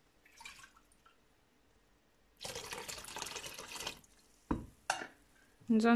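Water running from a kitchen tap for about a second and a half, starting a little over two seconds in, followed by two short knocks.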